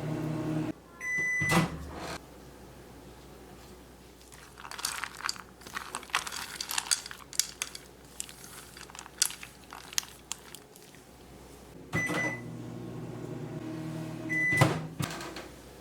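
Microwave oven heating chocolate in short bursts. Its running hum stops with a beep and the door is opened, then come several seconds of clicking and scraping as the bowl is handled and stirred. Near the end the microwave is started again, hums for about two and a half seconds, beeps and is opened.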